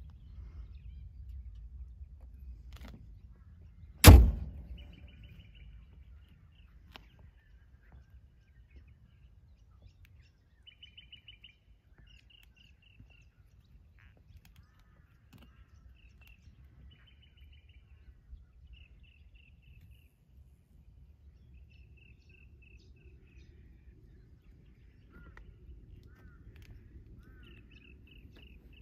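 Small birds chirping in short repeated trills over a low rumble, with one sharp, loud knock about four seconds in.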